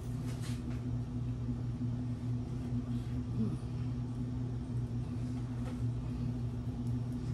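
A steady low hum, with a few faint clicks in the first half second.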